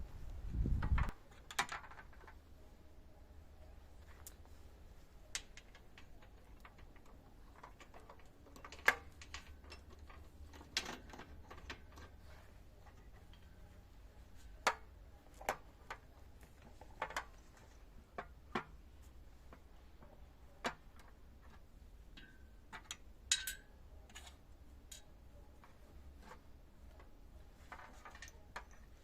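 Scattered light clicks and knocks at irregular intervals, like parts and hand tools being handled, over a low steady hum, with a heavier thump about a second in.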